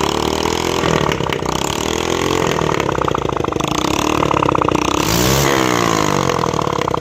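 Single-cylinder 70cc motorcycle engine running with no silencer fitted, revved up and down a few times with a sharp blip about five seconds in. It is running for its first check after a rebuild with new piston rings.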